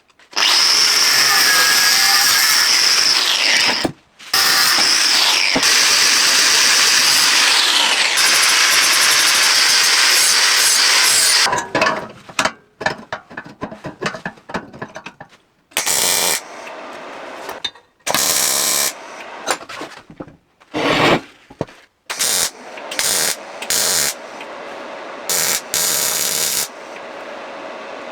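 Handheld power tool running in two long stretches with a high whine, its pitch dropping as it winds down at the end of each run, followed by a series of short on-off bursts of noise.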